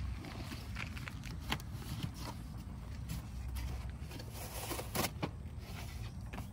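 Camping gear being handled and shifted in a car's cargo area: rustling of nylon bags and a sleeping bag with a few light knocks and clicks, over a steady low rumble.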